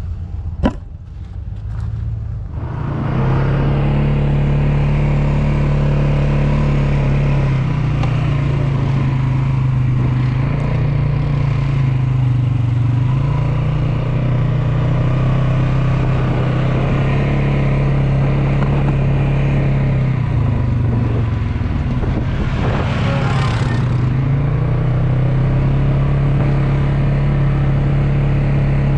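A motor vehicle's engine comes in loud about three seconds in and runs steadily at a fairly even speed, its pitch drifting slightly up and down. A brief rising whoosh passes near the end.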